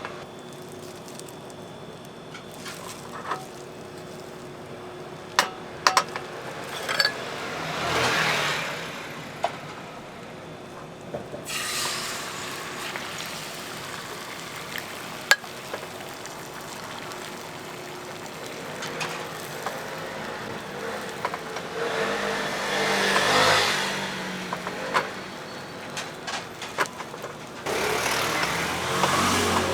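Street-stall cooking sounds: a steady sizzle of egg frying on a griddle, broken by sharp clicks and knocks of utensils, while traffic swells past a few times.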